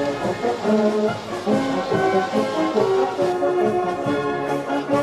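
Brass band playing, several horns sounding held notes together in changing chords.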